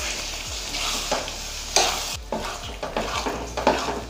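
Wooden spatula stirring and scraping a thick semolina halwa around a kadhai as sugar is mixed in, in repeated irregular strokes.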